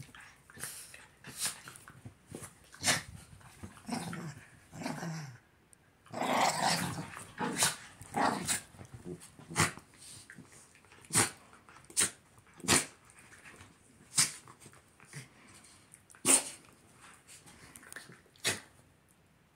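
Two small dogs play-fighting: growling, broken by short sharp yaps about once a second, with a longer, busier scuffle about six seconds in.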